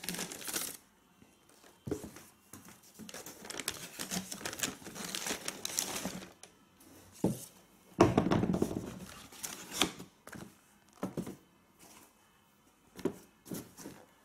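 Tissue paper in a cardboard shoebox crinkling and rustling as sneakers are lifted out and handled, with scattered knocks against the box and table; the loudest is a heavier thud about eight seconds in.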